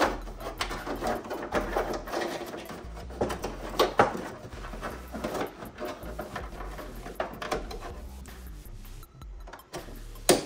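Irregular clicks and knocks of tools and parts being handled while working on a car's trunk lid. The sharpest knocks come about four seconds in and just before the end.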